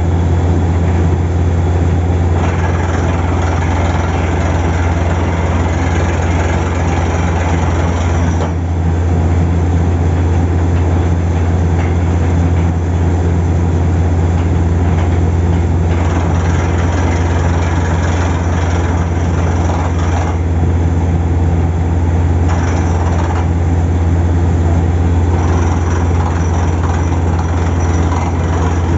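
Borewell drilling rig running steadily while drilling down a rod, a loud low drone with a hiss over it that shifts in strength a few times.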